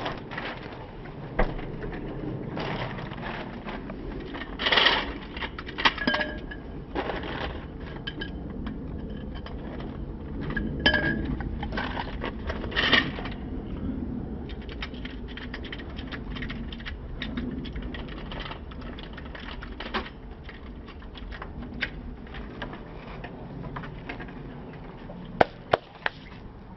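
Metal hand tools and parts clinking and knocking, with scattered clicks and a few louder metallic taps that ring briefly, as work goes on at a motorcycle's rear wheel.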